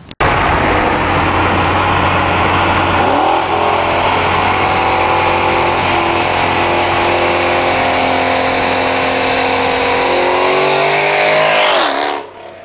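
2010 Chevrolet Camaro SS's 6.2-litre V8, with Borla long-tube headers and a straight-piped exhaust, driving at speed under a loud rush of wind and road noise. The engine note climbs about three seconds in, holds steady, rises again near the end, then cuts off suddenly.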